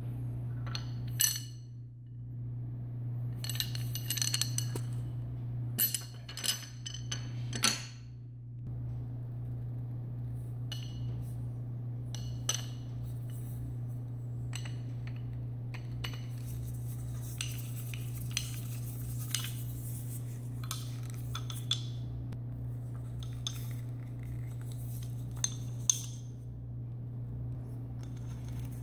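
Clicks, clinks and light scrapes of a dual camera mount bar being handled and fitted to a mini tripod ball head and a mirrorless camera. The clicks come thick in the first eight seconds and sparser after, over a steady low hum.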